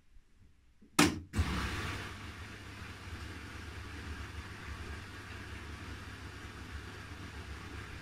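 Haier I-Pro Series 7 front-loading washing machine tumbling a load of clothes during a wash: a sharp loud knock about a second in, then the steady low rumble of the turning drum and wet laundry.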